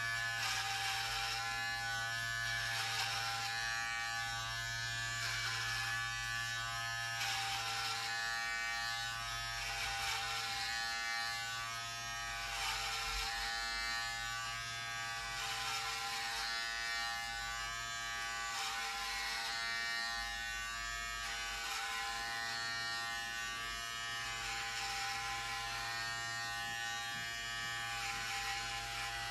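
Electric hair clippers running steadily while shaving a head down to a buzz cut, one even drone whose level wavers slightly now and then.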